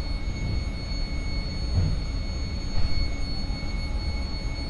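Inside a Stadler KISS electric multiple unit drawing into a station: a low running rumble with a steady high electrical whine over it. There are a couple of small bumps partway through.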